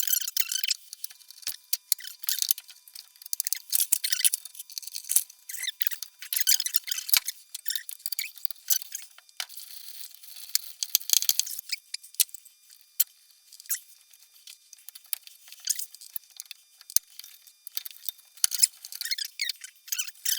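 Aerosol can of WD-40 spraying in many short hissing bursts onto seized control cables.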